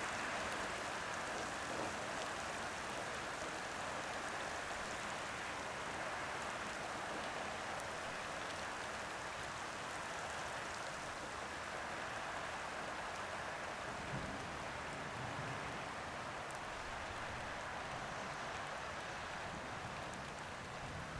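Heavy rain falling steadily, with running water.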